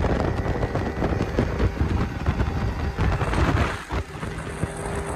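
Heavy wind buffeting on the microphone of a skiff at speed, over the rush of water and spray from the hull, with the boat's 2004 Yamaha 200 hp HPDI outboard running under it.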